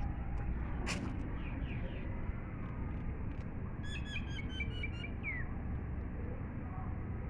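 A bird chirping: a quick run of about eight short, high chirps about four seconds in, ending in one falling note, with a few scattered chirps earlier. A steady low rumble lies underneath.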